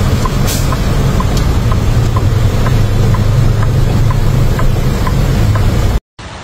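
A vehicle engine running steadily with a low hum, with a regular click about twice a second over it; it cuts off abruptly near the end.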